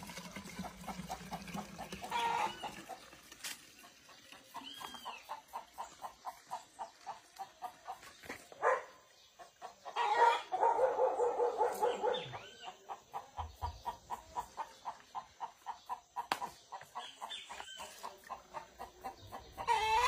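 Chickens clucking in a steady run of short calls, a few a second, with a longer, louder call about ten seconds in and a few high bird chirps. In the first couple of seconds, gasoline pouring into a plastic bottle.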